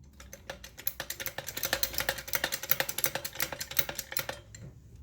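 A fast run of sharp metallic clicks, many a second, lasting about four seconds: a ratchet mechanism on car-lifting gear.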